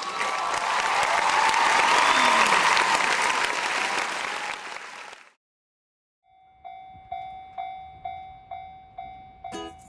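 Applause and cheering for about five seconds, cut off suddenly. After a second of silence, a Japanese railway level-crossing warning bell starts ringing, about two strokes a second, and music comes in near the end.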